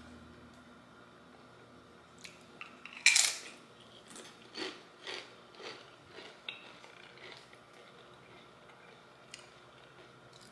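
Tortilla chip bitten with one loud crunch about three seconds in, followed by quieter crunches of chewing, about two a second, that fade out.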